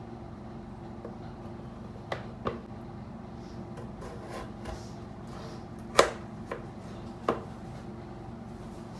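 Knife cutting raw potatoes into long strips on a chopping board: about five sharp, irregular knocks of the blade meeting the board, the loudest about six seconds in, over a steady low hum.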